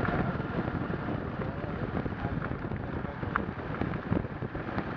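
Wind buffeting the microphone of a moving road vehicle, over the vehicle's low running noise, with a few short rattles and clicks.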